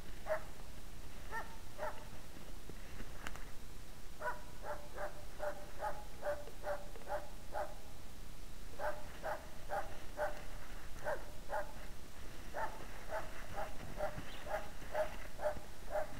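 Hunting dog barking at bay in long runs of rapid barks, about two a second, with short pauses between the runs.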